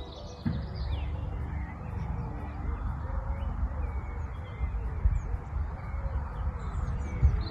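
Birds calling over a steady low rumbling noise, with short high chirps and a couple of low thumps near the end.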